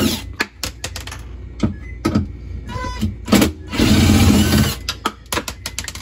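Cordless impact driver hammering as it backs bolts out of a fridge's freezer-door track: one burst ends just after the start and another lasts about a second midway, with scattered clicks and rattles between.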